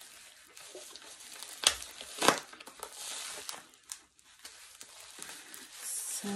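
Plastic bubble-wrap packaging crinkling and rustling as hands pull at it to get it open, with two sharp crackles about two seconds in.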